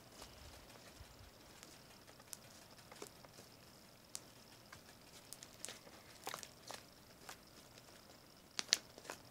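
Foamy slime with shaving cream mixed in, squeezed and kneaded by hand in a glass bowl: faint scattered sticky clicks and pops, with a sharper pair near the end.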